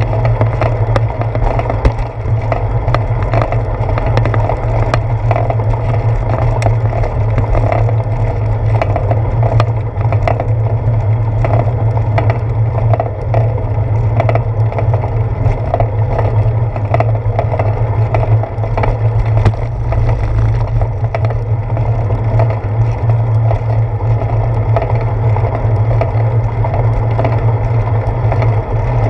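Ride noise picked up by a bicycle-mounted GoPro Hero 4: a steady low rumble from rolling over a concrete sidewalk, with constant clattering and many small knocks from bumps and vibration of the mount.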